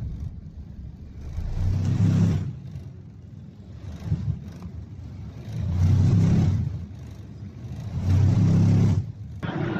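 Inside the cabin of a climbing Boeing 787-9 airliner: steady jet engine and airflow rumble, swelling into louder low rumbles three times.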